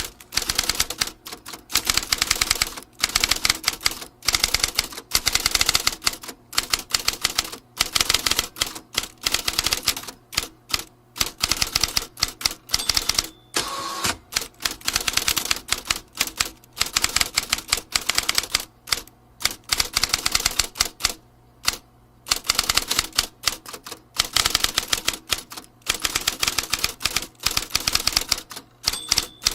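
Vintage typewriter being typed on: rapid runs of key strikes clacking, broken by short pauses.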